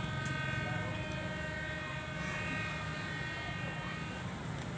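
A ferry's horn sounding one long, steady blast that stops about four seconds in, over a low steady rumble.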